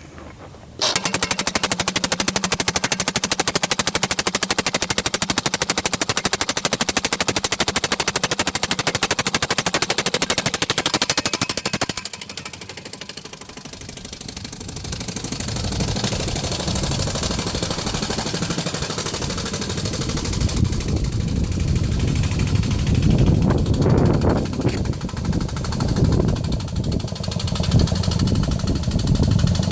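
Boring tool hammering rapidly as it drives a line bore under a concrete driveway, starting abruptly about a second in. The hammering eases after about twelve seconds, then goes on less sharply over a steady low hum.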